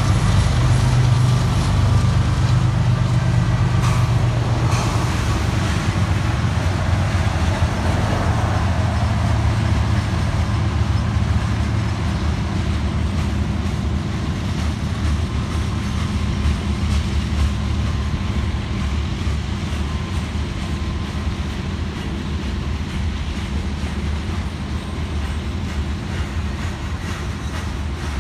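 Union Pacific diesel locomotives passing with a steady low engine drone that fades over the first dozen seconds, then covered hopper cars rolling by with a continuous rumble of steel wheels on rail.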